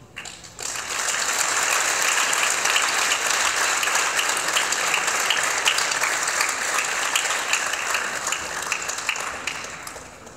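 Audience applauding: the clapping starts suddenly within the first second, holds steady, and dies away near the end.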